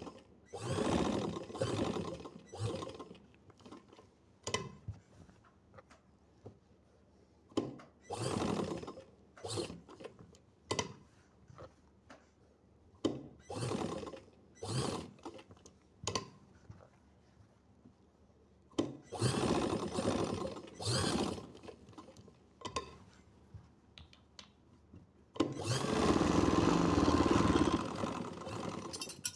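Sewing machine stitching in short runs of one to two seconds with pauses between, and light clicks in the gaps; the longest run comes near the end.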